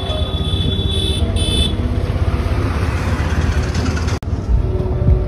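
Street traffic of scooters and motorbikes heard from the road, a steady low rumble, with a short, high-pitched vehicle horn tooting twice about a second in.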